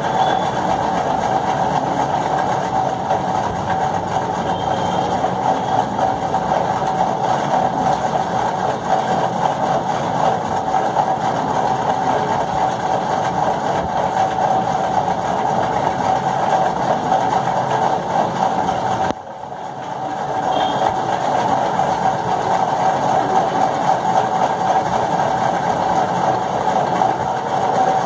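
A steady machine drone with a constant hum, like a motor running. It drops sharply about nineteen seconds in and builds back up within a second.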